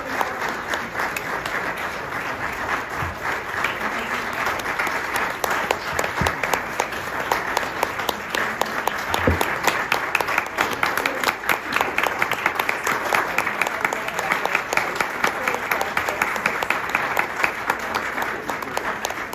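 A large audience applauding: many people clapping together in a dense, sustained ovation.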